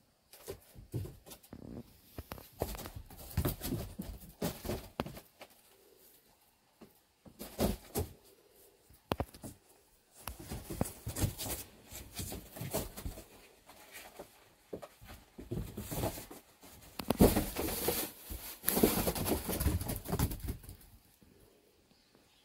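Irregular rustling, scuffling and light knocks from kittens scrambling over boxes and bedding, mixed with handling noise from the phone as it is moved. The loudest stretch of scuffling comes about seventeen to twenty-one seconds in.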